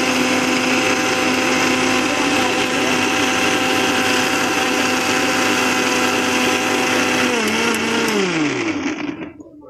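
Electric mixer grinder running steadily, its steel jar grinding onion, garlic, ginger, almonds and walnuts into a paste. About seven and a half seconds in it is switched off, and its whine falls in pitch as the motor winds down and stops.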